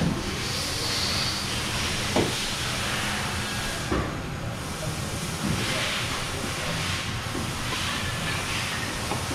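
Steady hissing shop background noise, with a few sharp clicks and knocks as the metal supercharger nose cover and its bolts are handled and set on the housing.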